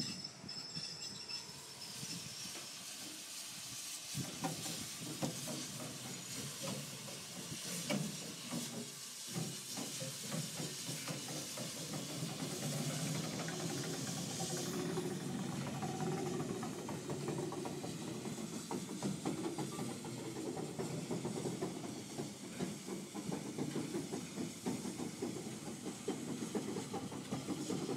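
Steam locomotive Santa Fe 3751, a 4-8-4 Northern, hissing steam steadily, with a lower rumble joining about twelve seconds in.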